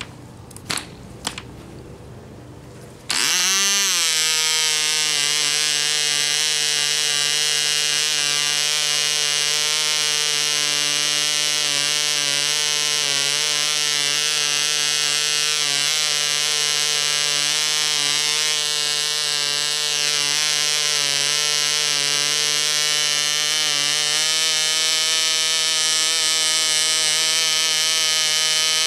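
A few light clicks, then about three seconds in a small model compression-ignition (diesel) engine with propeller comes in loud and runs steadily at high speed, a high-pitched buzz that holds without a break. It runs at around 9,500 rpm.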